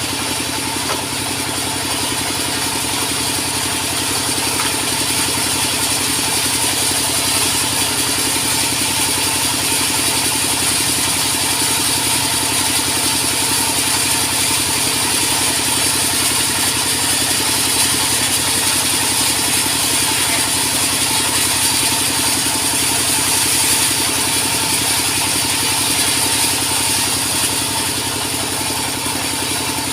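Sawmill machinery running steadily: an engine-like drone with a high hiss over it, unchanged throughout.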